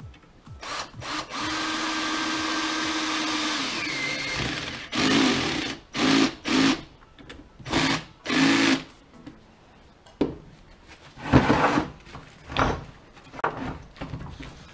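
Parkside cordless drill/driver in screwdriver mode driving a screw into a wall plug in a hollow brick: one steady run of about three seconds that rises in pitch as it ends, then four short trigger bursts as the screw is snugged down. A few knocks follow near the end.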